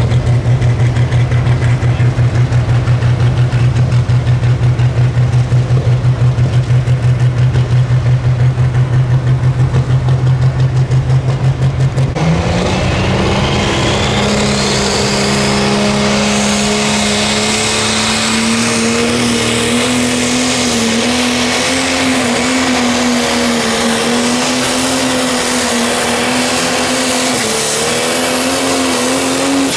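Pro Stock pulling tractor's diesel engine running at a steady, pulsing high idle, then about twelve seconds in revving sharply to full throttle and holding high, slightly wavering revs as it pulls the sled, with a rising whistle just after it opens up. The revs drop away at the very end.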